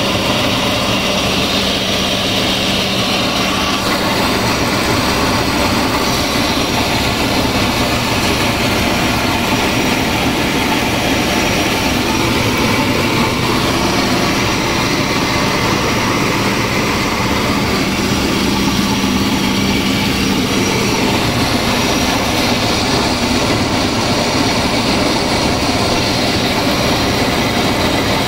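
Flour mill machinery running steadily while grinding dry corn into maize flour: a loud, even mechanical noise with a constant low hum.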